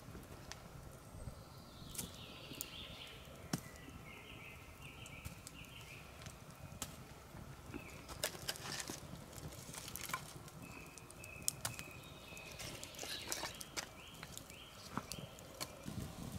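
Faint forest ambience: a bird calling in short runs of quick, repeated notes, twice, with scattered sharp clicks and snaps.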